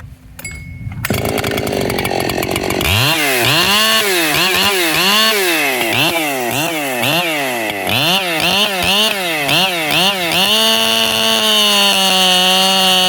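Ported Echo CS-7310P two-stroke chainsaw catching about a second in and clattering at idle. It is then blipped on the throttle, revving up and dropping back sharply about eight times. Near the end it is held at steady high revs.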